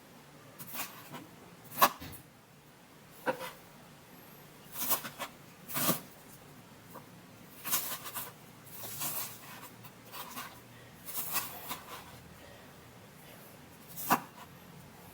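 Scattered sharp clicks and short rustles of objects being handled, about a dozen separate sounds with quiet gaps between them.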